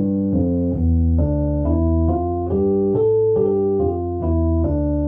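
Electric keyboard played with both hands in a steady rhythm, about two notes a second: low bass notes in the left hand with the right hand playing the same line higher up, stepping up and back down.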